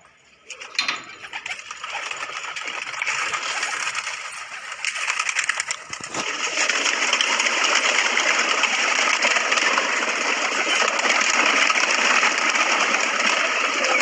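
Wings of a flock of fancy high-flyer pigeons flapping in flight, a dense, rapid fluttering clatter. It starts with a sharp click just under a second in and turns louder and steadier about six seconds in.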